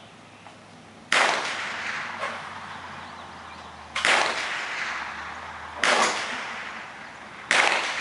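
Four single shots from a compact semi-automatic pistol, a few seconds apart: about a second in, at about four seconds, near six and at seven and a half. Each sharp crack is followed by a long echo dying away under the roofed firing line.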